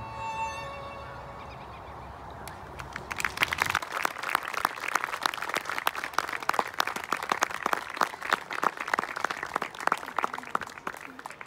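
A violin's last note fades, then a small audience applauds, the clapping starting about three seconds in and continuing until it cuts off near the end.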